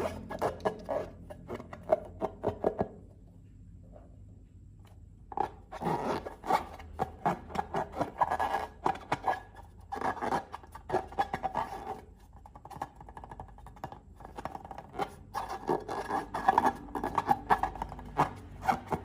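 Slime being worked by hand, giving bouts of dense sticky clicking and scraping with short pauses between them.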